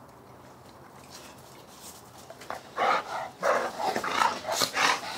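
Dogs play-fighting, with a quick run of short, loud barks starting about three seconds in.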